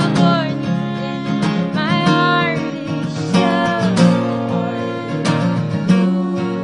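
A pop song: strummed acoustic guitar with a woman singing over it.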